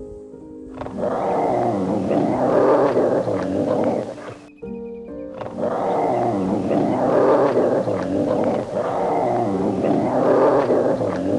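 An animal's rough, noisy calls, repeating about every one and a half seconds with a short break midway, over background music with steady held notes.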